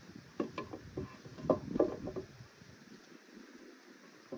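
Wooden plank knocking and clattering against other wooden boards as it is set into place: a quick run of hollow knocks over about two seconds, loudest in the middle.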